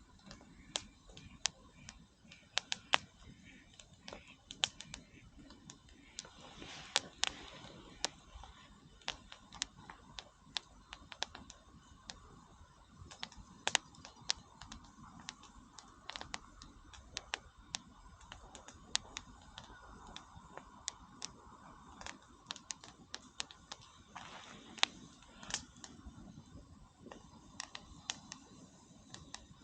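Wood bonfire crackling and popping: irregular sharp snaps, a few a second and some louder than others, over a faint steady hiss.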